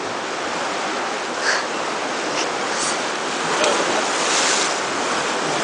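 Sea washing against the rocks below: a steady rushing hiss with a few brief louder surges.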